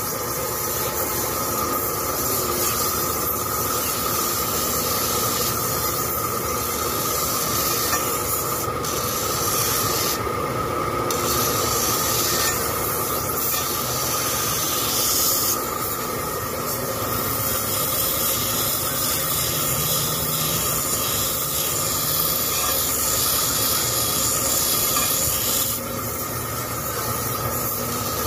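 Steel scissor blades ground against spinning flat disc grinding wheels: a steady grinding hiss with a constant whine from the running wheels, the hiss easing off briefly a few times as a blade is lifted away.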